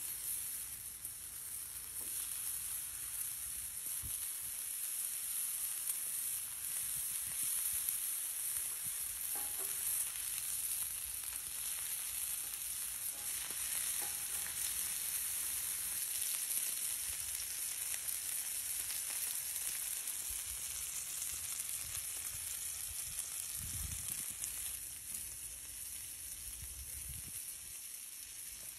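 Bacon-wrapped hot dogs frying on a flat griddle: a steady, high sizzling hiss of fat spitting on the hot surface.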